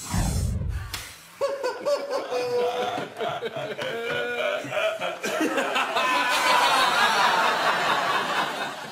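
A brief low whoosh from a TV title sting, then people laughing and giggling, the laughter growing louder and denser toward the end.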